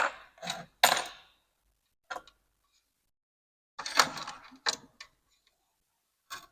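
Light clicks and taps of small repair tools being handled on a workbench: a few scattered knocks, with a quick cluster of them about four seconds in.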